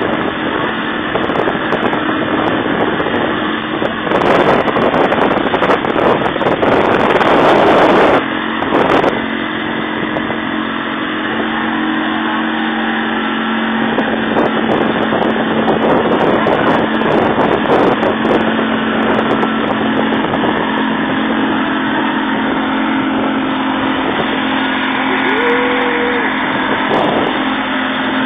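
Motorboat engine running steadily under way, its drone mixed with the rush of water and wind past the hull. The rushing gets louder for a few seconds about four seconds in, then settles.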